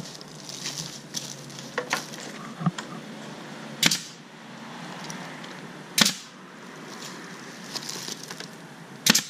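Pneumatic nail gun firing three times, about four, six and nine seconds in, each a sharp crack as it drives a nail through window casing into the frame. Lighter clicks and knocks come before the first shot.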